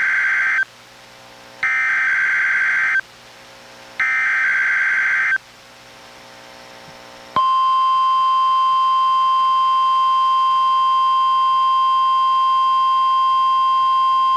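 NOAA Weather Radio Required Weekly Test: three buzzy bursts of the SAME digital alert header, about a second apart, the first already under way. About seven seconds in, the steady 1050 Hz warning alarm tone starts and holds.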